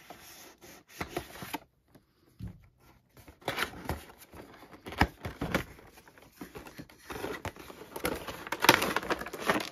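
Cardboard toy box being opened by hand: the tape seal is slit, the flaps are pulled open and the inner card sleeve and plastic tray are slid out, with irregular scraping, tearing and crinkling of card and plastic and many small clicks, busier in the second half.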